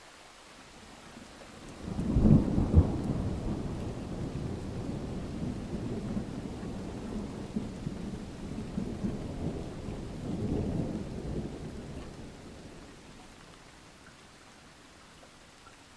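A thunderclap over steady light rain: a sharp crack about two seconds in, then a low rumble rolling on for about ten seconds, swelling once more before fading away.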